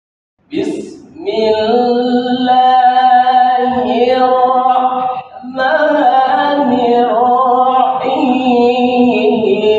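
A solo male voice chanting a melodic Quran recitation (tilawah) with long, ornamented held notes and no accompaniment. It starts suddenly about half a second in and breaks briefly for a breath about five seconds in.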